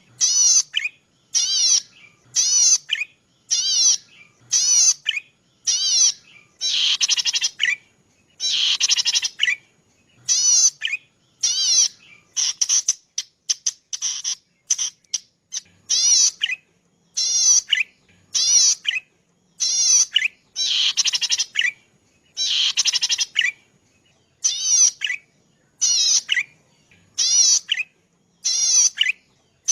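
Cici padi (prenjak padi), a small rice-field warbler, singing: short, rapid, high trilled phrases repeated about once a second, a few of them drawn out to about a second, with brief pauses between.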